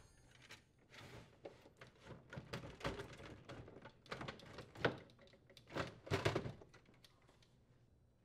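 Faint plastic clicks, knocks and scraping as a Whirlpool refrigerator ice maker assembly is worked loose and slid out of its mounting, with a few louder knocks around the middle.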